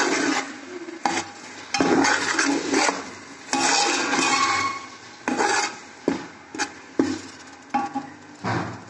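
Long metal spoon stirring and scraping ground onion paste in hot oil against the side and bottom of a metal cooking pot, in irregular strokes about once a second. The onion paste is being fried (bhuna) until its raw taste cooks off.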